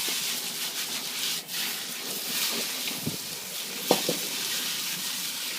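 Rice noodles sizzling and frying in a hot wok as they are stir-fried, a steady hiss with a few light knocks of the utensil against the wok about three and four seconds in.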